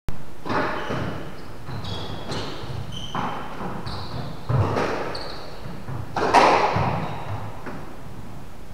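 Squash ball being struck back and forth in a rally: sharp hits of racket and ball against the front wall, about one a second, each ringing on in the enclosed court, the loudest about six seconds in. Short high shoe squeaks on the court floor come between the hits.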